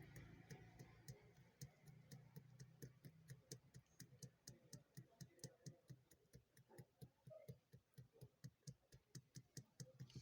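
Faint, even ticking, about three ticks a second, with a low hum that fades out in the first few seconds.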